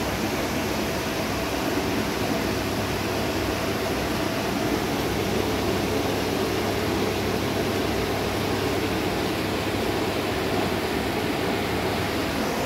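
Steady hiss and low hum of aquarium equipment: air pumps bubbling air through sponge filters in rows of fish tanks.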